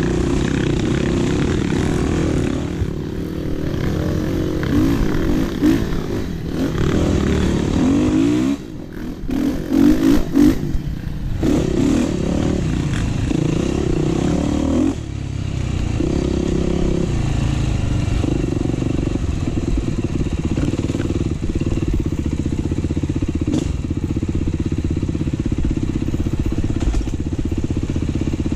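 Dirt bike engine running under way, rising and falling in pitch as the throttle opens and closes. About nine to twelve seconds in it goes choppy with short drops and quick blips, then settles to a steadier pull.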